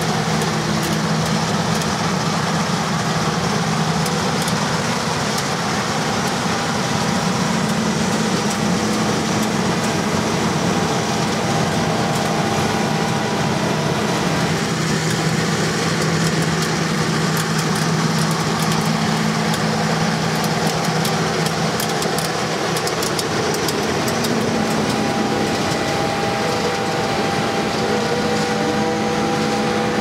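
John Deere S670i combine harvester running steadily: a constant engine hum under a wash of machine noise.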